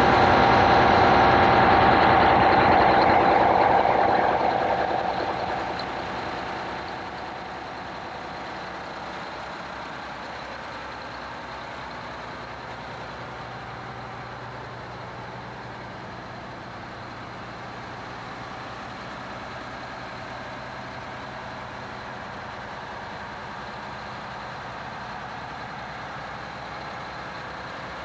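Twin GM Detroit Diesel 12V71N two-stroke V12 marine diesel engines running steadily, heard close up. About five seconds in the engine sound drops sharply in level as the microphone's noise-cancelling fades it down, then holds steady.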